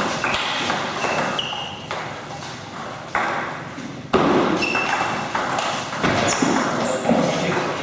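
Table tennis ball knocking on bats and table during a rally: a run of sharp, irregular knocks, with a few short high squeaks between them.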